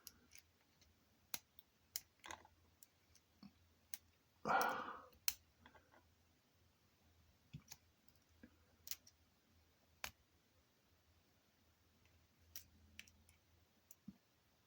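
Lock pick and tension tool working inside a cheap practice lock: faint, irregular small metal clicks and taps as the pins are probed.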